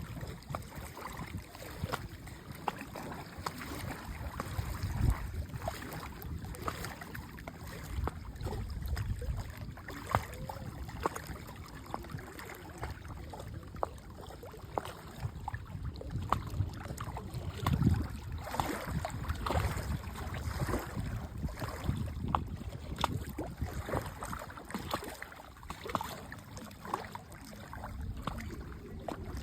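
Lake water lapping, with small waves splashing irregularly at close range.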